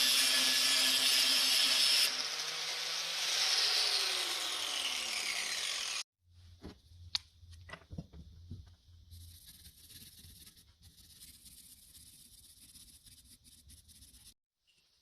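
A power tool running flat out is switched off about two seconds in and winds down with a falling whine over the next few seconds. The sound then cuts to a much quieter stretch: a low hum with a few light clicks and taps.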